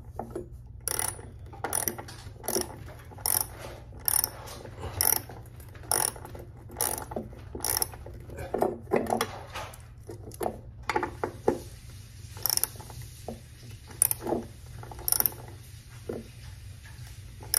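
Hand ratchet wrench clicking as it drives a screw into a concrete wall, a short burst of ratchet clicks on each back-stroke, a little more than one stroke a second, spacing out further apart over the last several seconds.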